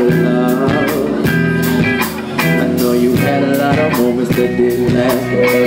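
Live band playing an instrumental passage of a slow R&B groove, with electric guitar and keyboard over a steady drum beat and no singing.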